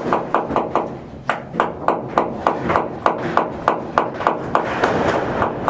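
Hammer striking rapidly and evenly, about three to four blows a second, with a short pause about a second in.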